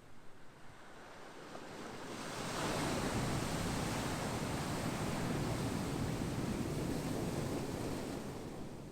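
Ocean surf: a wave swells in over the first couple of seconds, then breaks and washes with a loud, steady rush for several seconds before easing off near the end.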